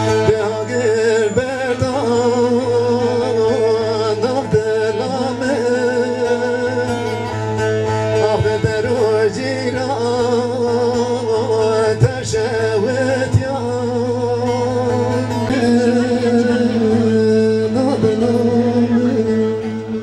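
A man singing Kurdish dengbêj-style, in long wavering, ornamented phrases, to oud accompaniment.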